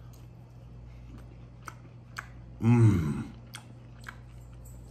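A man chewing a mouthful of breaded, buffalo-sauced vegan chicken nugget, with faint scattered mouth clicks. About two and a half seconds in he gives one loud, low 'mmm' grunt of enjoyment.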